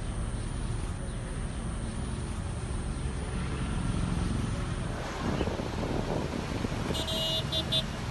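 Steady low outdoor rumble, with a few short high-pitched beeps near the end.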